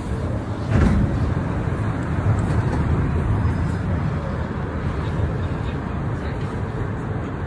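Montréal Metro rubber-tyred train running, heard from inside the car as a steady rumble, with a single knock about a second in.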